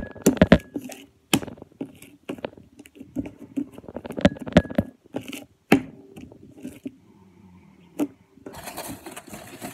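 Elmer's glue slime being kneaded and pressed by hand, with irregular sharp clicks and pops as trapped air bursts from it. A steady noise starts near the end.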